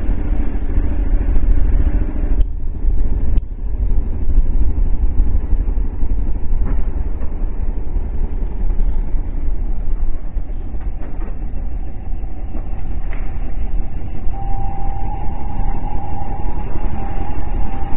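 Motorcycle riding at road speed, heard through its onboard camera: heavy wind rumble on the microphone over the engine. A steady higher engine whine comes in about three-quarters of the way through.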